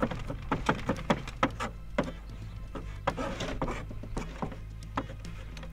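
Kitchen knife chopping garlic on a plastic cutting board: quick, irregular taps of the blade striking the board.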